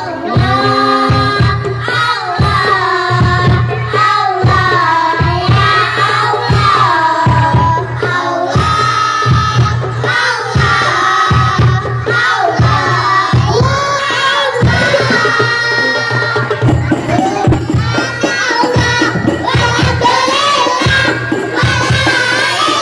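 A group of young children sing in unison into microphones, accompanied by rebana frame drums and a larger drum beating a steady rhythm.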